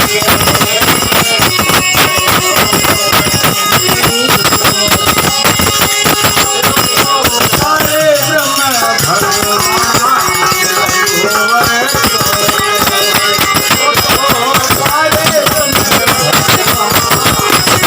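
Live bhajan music dominated by fast, dense percussion that keeps an even beat throughout, with a melody line bending up and down in pitch from about eight to twelve seconds in.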